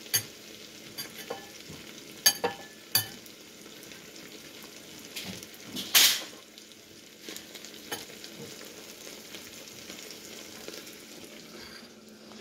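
Diced potatoes and onion frying in oil in a lidded pan: a steady sizzle with scattered pops and crackles, the loudest about six seconds in.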